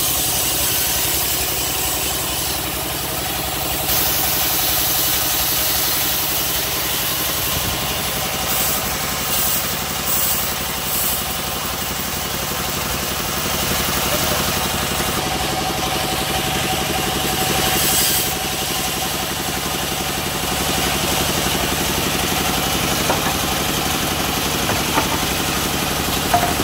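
A rural band saw mill running steadily under its drive engine, a constant mechanical drone with a high hiss over it. A few light knocks come near the end.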